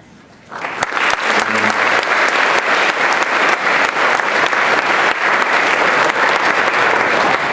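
Audience applause in a large hall, starting suddenly about half a second in and going on steadily.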